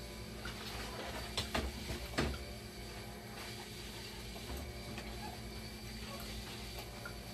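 Hinged plastic-and-metal front panel of a dialysis machine being swung shut and pressed home by hand: three sharp clicks and knocks about a second and a half to two seconds in, then light handling noises, over a steady low hum.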